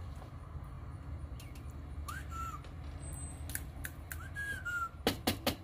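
A person whistling two short notes to get a rabbit's attention. The first rises and then holds, and the second rises and then falls a little. A quick run of sharp clicks follows near the end.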